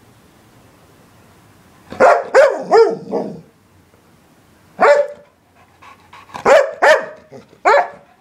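Springer spaniel barking in short yelping barks that bend down in pitch. There is a quick run of about four about two seconds in, a single bark near the middle, and a few more near the end.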